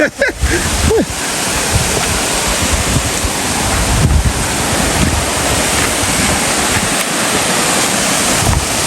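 Waterfall rushing steadily, a loud even roar of falling water, with wind gusting on the microphone.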